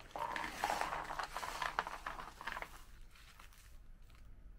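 Small crunchy Baby Star ramen snack balls poured from a foil-lined snack bag, pattering and clicking onto a plate while the bag crinkles. The pouring lasts about three and a half seconds, with a few last faint ticks after it.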